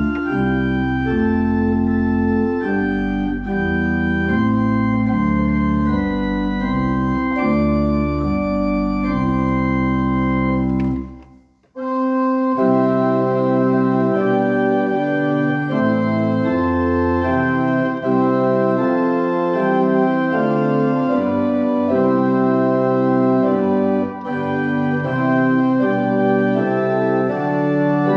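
Church organ playing a hymn tune in sustained chords with deep pedal bass. About eleven seconds in it stops for a moment at the end of a verse, then starts the next verse with less bass.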